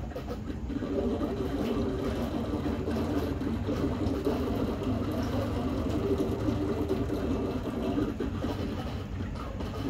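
Submersible aquarium water pump running, a steady mechanical hum with water movement.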